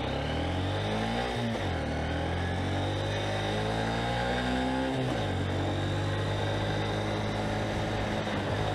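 Honda CB125F's 124 cc single-cylinder four-stroke engine under way, revving up and dropping in pitch at two gear changes about a second and a half and five seconds in, then running steadily.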